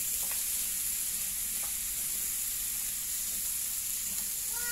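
Chayote, pumpkin and prawns sizzling steadily in a hot non-stick frying pan, with a few light clicks of the spatula as they are stirred.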